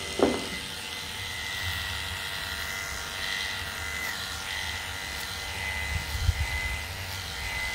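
Electric dog clippers with a number 10 blade running steadily as they are drawn through a dog's coat. A brief sharp sound falling in pitch comes just after the start, and a few low bumps about six seconds in.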